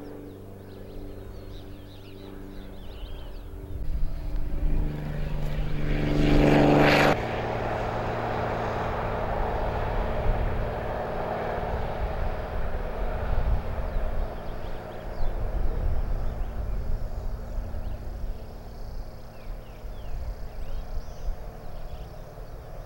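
Engine and propeller of a low-flying single-engine crop-spraying airplane, a steady drone that grows louder about four seconds in. It stays loud and steady as the plane makes a spraying pass, with an abrupt change in tone about seven seconds in.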